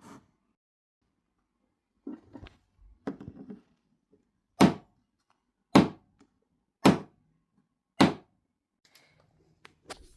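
Foley sound effects recorded in a small room: two soft scuffs, then four heavy thuds evenly spaced about a second apart, with a couple of faint clicks near the end.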